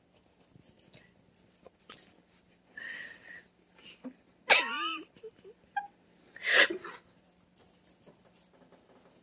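Stifled, wheezy laughter in short breathy bursts, the loudest about halfway through with a wavering squeak, and another burst about two seconds later, with small clicks and rustles between.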